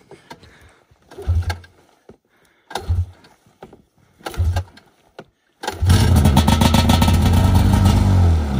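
Snowmobile engine being started: three short turnover attempts, then it catches a little after halfway and runs steadily. The sled has a fault that makes it start, idle for a moment and then cut out.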